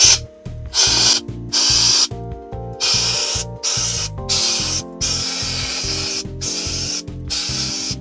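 Homemade compressed-air venturi vacuum hissing in spurts of about a second, stopping and starting several times, with small grains rattling as they are sucked up its hose. Background music with a steady beat plays under it.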